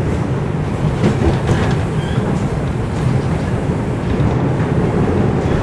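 TTC Line 1 Toronto Rocket subway train running along the track, heard from inside the car: a steady, loud rumble of wheels on rail, with a few short clicks about one and a half seconds in.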